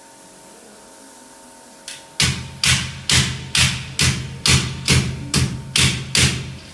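A series of about ten hammer blows, evenly spaced at roughly two a second, starting about two seconds in.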